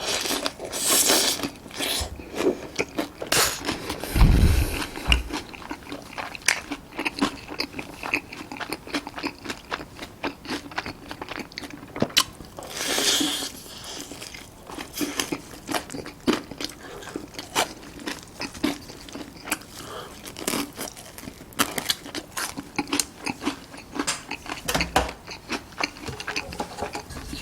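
A person biting and chewing food close to the microphone: many small crisp crunches and wet chewing sounds, with a few louder crunches and a low thump or two.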